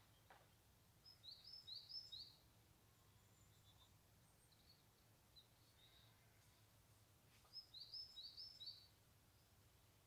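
A small songbird in conifer woodland sings two short, high-pitched phrases of repeated notes, one about a second in and one about six seconds later. Faint single chirps fall between them over a very quiet background.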